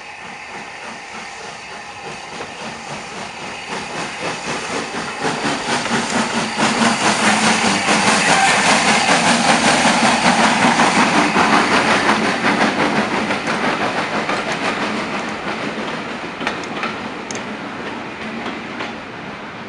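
Steam-hauled passenger train, led tender-first by Southern Railway Schools class 4-4-0 No. 925, pulling out and passing close by, its coach wheels clattering rapidly over the rail joints. The sound builds to its loudest about eight to twelve seconds in as the coaches go by, then fades as the train draws away.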